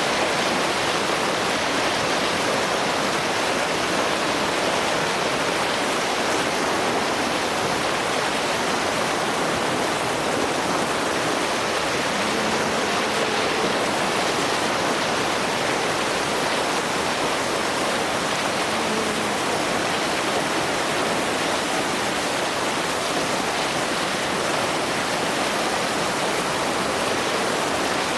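Heavy white water of the River Nile rushing over falls and rapids, a steady, even roar of water.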